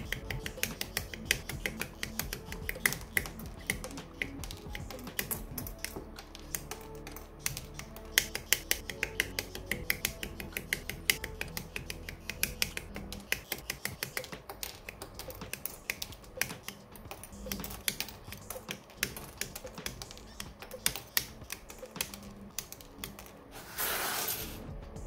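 Quick, irregular sharp clicks of plastic model-kit parts being cut and snapped together, over background music. A short hiss comes near the end.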